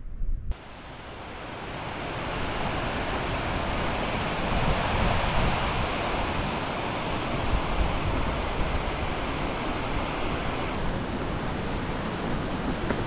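Mountain stream rushing and cascading over boulders: a steady hiss that fades in over the first couple of seconds, with its higher part dropping away about eleven seconds in. Wind buffets the microphone in low gusts underneath.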